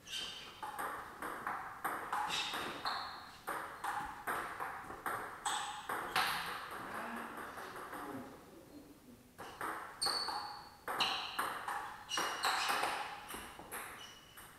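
Table tennis rallies: the celluloid ball clicks sharply off the rubber-faced bats and the table top, a few hits a second. The hits stop briefly about nine seconds in, then another rally follows.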